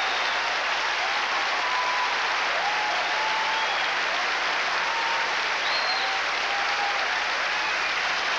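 Large concert audience applauding steadily, with scattered cheers and whistles rising over the clapping now and then.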